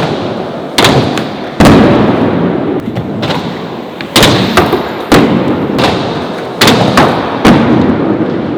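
Skateboard hitting and landing hard about seven times in quick succession, with sharp board slaps and cracks. After each hit the wheels rumble and roll away across a hard floor.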